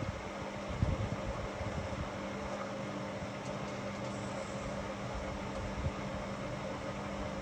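Whirlpool FSCR 10425 front-loading washing machine running: a steady motor hum with scattered low thuds, the strongest about a second in.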